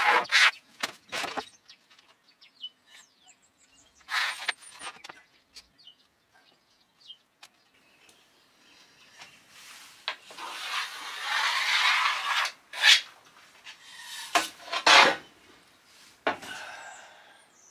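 A long spirit level being slid and set down on plywood floor boards, with a pencil scratching along it to rule lines. There is a longer scratch of a few seconds in the middle, and a few sharp knocks near the end.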